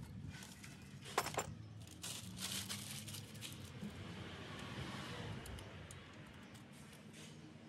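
Small metal clinks and rustling of hand work in a car's engine bay, with two sharp clinks about a second in and short scraping noises a moment later.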